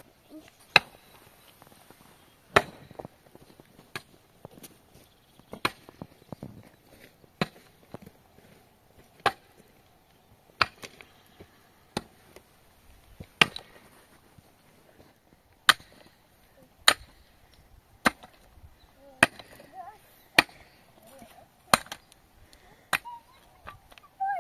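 Wood being chopped: about fifteen sharp blows at a steady pace, one every one to two seconds.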